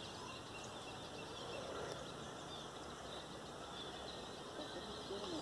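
Steady background noise with faint, scattered bird chirps.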